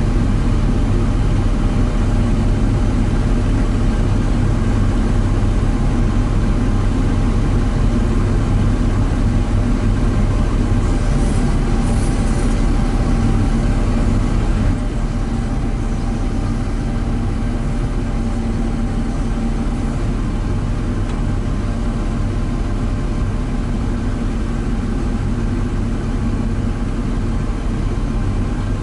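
A heavy engine running steadily with a low drone; the level drops slightly about halfway through.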